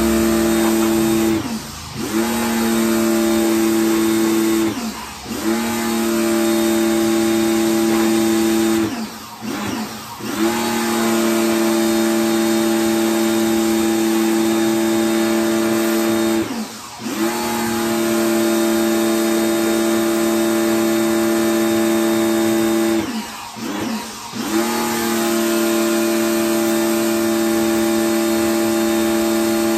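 Kawasaki ACK 302 electric pressure washer running, its motor giving a steady hum over the hiss of the water jet. About five times the motor's pitch drops and climbs back up as the spray gun is let off and squeezed again.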